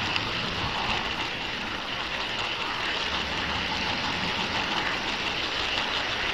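HO-scale model train rolling along the track, heard from on board: a steady running noise of metal wheels on the rails and the small motor, with a hissing edge and low rumble.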